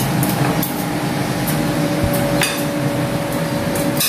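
Spoons and forks clinking against ceramic dinner plates while people eat, a few separate clinks over a steady background hum.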